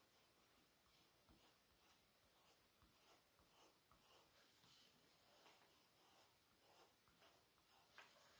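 Faint strokes of a colored pencil on drawing paper as a circle is traced over and over, with one slightly sharper tick near the end.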